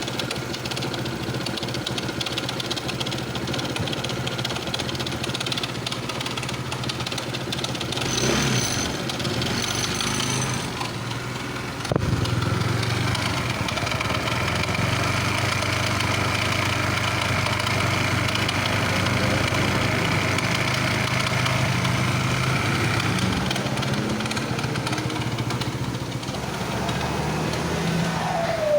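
Honda PCX160 scooter's single-cylinder engine running steadily, making a noise that the owner calls abnormal. A sharp click comes about twelve seconds in, after which it runs slightly louder.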